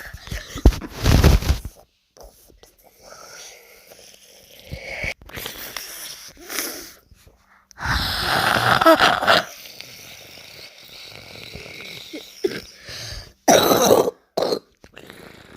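Rough throat and breathing noises, like coughing and wheezing, in three loud bursts: about a second in, from about eight to nine and a half seconds in, and near the end, with quieter breathy sounds between.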